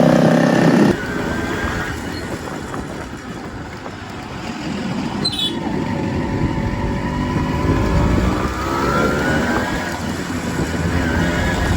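Modified Yamaha RX100's two-stroke single-cylinder engine running, with an abrupt change in the sound about a second in and a slow rise in pitch later on.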